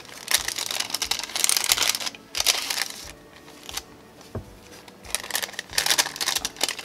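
Rustling and crinkling of a thin translucent paper envelope being handled and opened, in irregular bursts, with a quieter stretch in the middle.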